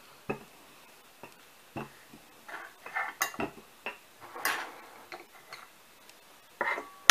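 Metal measuring cups and a small stainless saucepan knocking and clinking on a wooden table as they are picked up and moved aside, a few separate knocks and short scrapes with a brief ring near the end.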